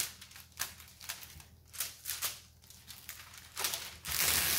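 Clear plastic protective film on a diamond-painting canvas crinkling as it is handled, a few short rustles, then a louder continuous rustle near the end as the film is laid back down.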